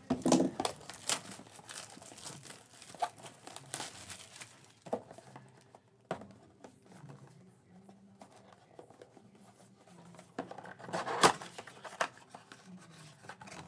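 Hands handling a cardboard Panini Prizm basketball blaster box and tearing it open, with scattered rustling and crinkling of the packaging. There is a louder burst of tearing about eleven seconds in.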